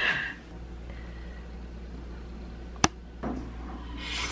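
A person slurping ramen noodles off a fork near the end, over a low steady hum. A single sharp click comes about three seconds in.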